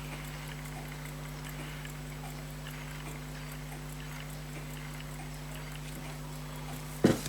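Steady low electrical hum with faint, scattered little clicks of small watch parts and tools being handled, then one sharp tap near the end.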